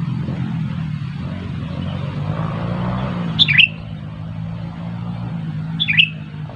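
Sooty-headed bulbul giving two short chirping calls, about two and a half seconds apart, over a steady low hum.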